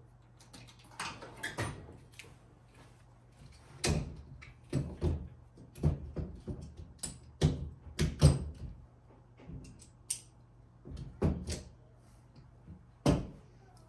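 Someone rummaging off to the side for a set of Allen keys: a string of irregular clicks, knocks and clatters of things being handled and moved, busiest a little past the middle.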